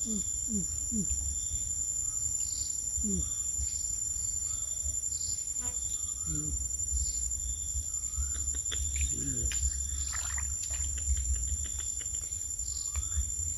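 Crickets trilling as a steady high drone, with a softer pulsing chirp about once a second. Short low falling calls come now and then over a constant low rumble.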